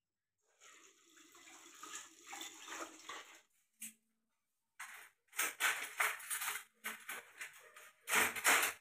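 Tap water running into a kitchen sink as dishes are rinsed, then crockery and a spoon clattering as bowls and plates are set onto a wire dish rack, the loudest clatter near the end.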